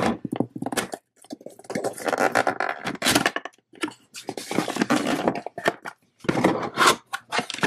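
Cardboard box being handled and opened: the flaps and lid scrape, rub and knock in several irregular bursts with short quiet gaps between.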